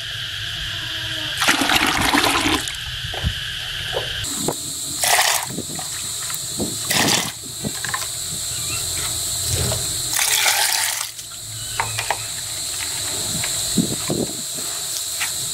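Molasses-and-water fermentation mix being ladled and poured into plastic buckets, in several separate splashing pours.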